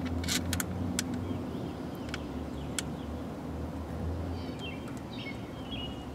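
Short plastic clicks as spark plug wires are worked onto a new distributor cap, a handful in the first three seconds, over a steady low hum; a bird chirps a few times near the end.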